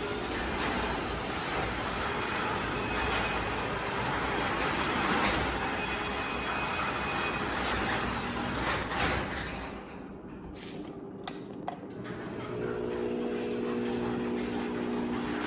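Motorised garage door running with a steady rolling noise. About ten seconds in it dips briefly with a few clicks, then runs on with a low hum.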